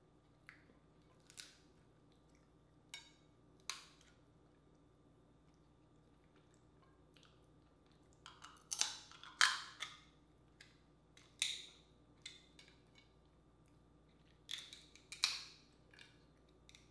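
Dungeness crab shell being cracked apart by hand and bitten into, an irregular run of sharp cracks and crunches with the loudest cluster about halfway through and another near the end.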